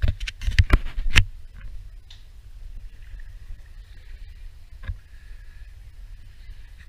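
Wind buffeting a camera microphone as a steady low rumble, with a cluster of loud knocks in the first second or so and one more about five seconds in.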